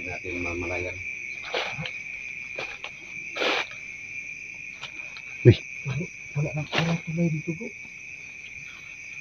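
Night insects, crickets, keeping up a steady high chirring chorus, with a few short brushing and knocking sounds of movement through grass on top.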